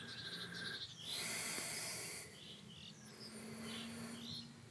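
Faint birdsong: repeated short high chirps with a thinner, higher twittering over them. A soft hiss starts about a second in and lasts about a second.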